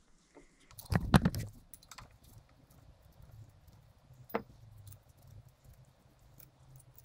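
Small metal tools and parts clinking against the engine case: a short clatter of clicks about a second in, then one single click.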